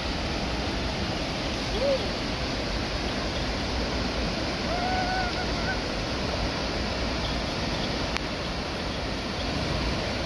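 Steady rush of a tall waterfall: an even hiss of falling water with no rhythm or break.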